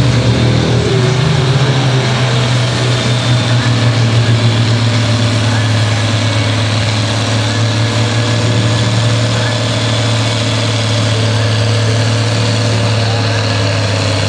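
Ford TW20 tractor's six-cylinder turbo diesel running hard under heavy load while pulling a weight-transfer sled, a loud, steady drone whose pitch sags slightly in the first couple of seconds and then holds.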